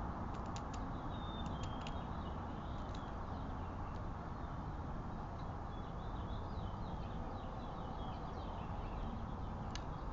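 Small birds chirping and twittering in short, quick, high notes over a steady outdoor background hiss, with a few sharp clicks near the start and one near the end.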